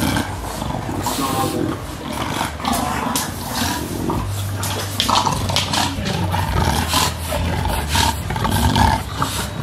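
English bulldog breathing noisily and grunting in short repeated bursts, about one or two a second, while holding a spiked rubber ball in its mouth.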